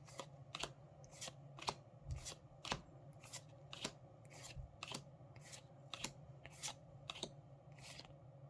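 Trading cards being flicked through one at a time, each card snapping off the stack with a sharp click, about two a second.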